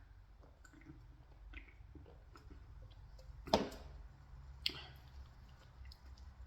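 A person chewing pizza close to the microphone: soft, wet mouth sounds with scattered small clicks, and two sharper, louder smacks about three and a half seconds and nearly five seconds in.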